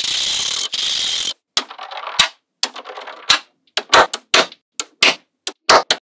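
Small magnetic balls clicking as they snap together one after another, the clicks coming faster toward the end, about three or four a second. It opens with a rushing noise lasting about a second.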